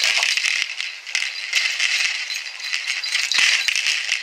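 Continuous rattling and rustling with many scattered clicks, from a dog leaping at and tugging on a ball toy hung on a rope from a tree.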